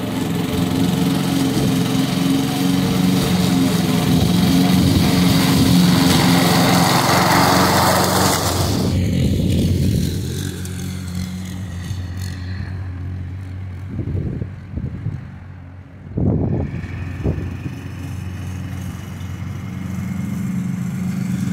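Honda gasoline push mower's engine running steadily while cutting grass. About ten seconds in the sound changes abruptly to a quieter, more distant take of the same mower running, which dips and swells briefly a few seconds later.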